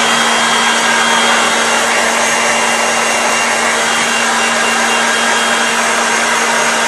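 Handheld hair dryer blowing steadily: an even rush of air with a low, constant motor hum.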